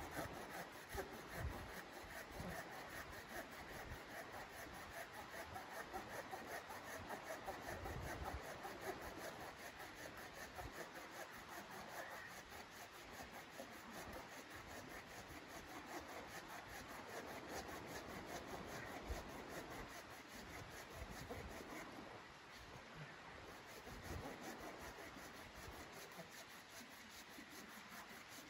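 Red-handled folding hand saw cutting through a piece of firewood, steady back-and-forth rasping strokes of the teeth in the wood.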